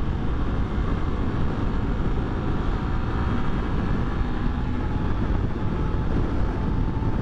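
Honda XRE300 motorcycle's single-cylinder engine running at highway speed and pulling steadily as the bike speeds up, mixed with a low, even rush of wind over the microphone.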